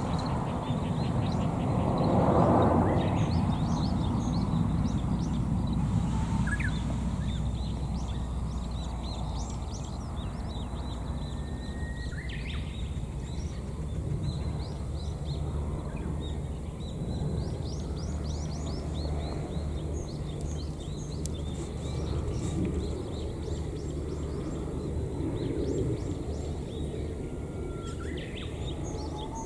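Small birds chirping in many short high notes over a steady low outdoor rumble, with a louder low rush about two seconds in and a few brief sharper calls scattered through.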